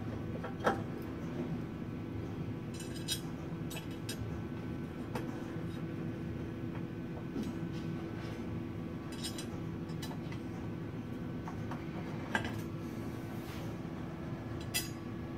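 Small metallic clicks and clinks, scattered a second or several apart, as screws and a hand tool are worked against a metal 3D-printer build plate to fasten it down. A steady hum runs underneath.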